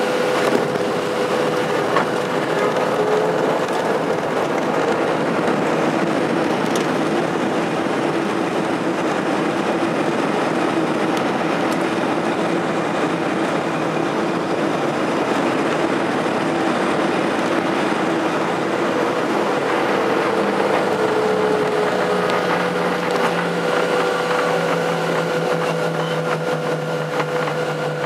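Cabin noise of a Boeing 737-700 rolling on the ground, heard from a window seat over the wing: steady jet engine noise with the rumble of the wheels, and a couple of light knocks about two seconds in. A deeper hum comes in near the end.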